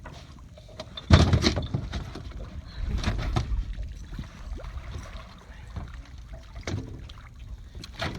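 Irregular knocks, thumps and handling noises in a small fishing boat, the loudest thump about a second in.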